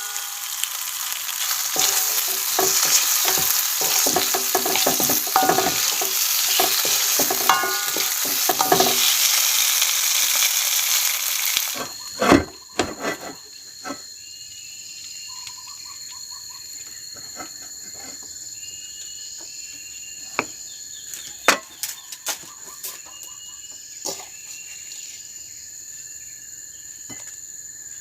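A leftover side dish sizzling in a pan as it is reheated, with a utensil stirring and tapping against the pan. About twelve seconds in the sizzling cuts off suddenly, leaving a steady high insect drone and repeated short cricket chirps with a few scattered clicks.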